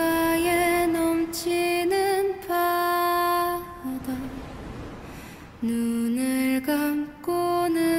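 Slow, gentle sung melody: a single voice holding long notes with light vibrato, in short phrases separated by brief gaps.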